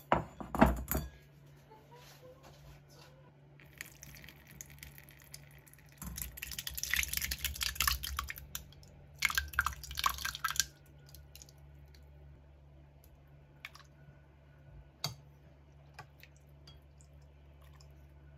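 Thick, set homemade yogurt poured from a glass bowl into a cheesecloth-lined strainer to drain off the whey: wet glopping and splattering in spells from about four to eleven seconds in, after a sharp knock near the start. A low steady hum runs underneath.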